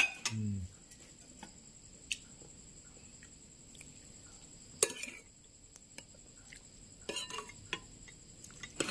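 Metal spoon clinking now and then against ceramic bowls and a plate while vegetable soup is ladled onto rice: a few separate, sharp clinks spread over several seconds.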